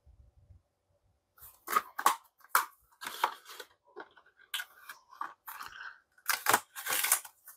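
Plastic packaging of Blu-ray cases being handled: irregular crinkling and crackling with sharp clicks, starting about a second and a half in and loudest near the end.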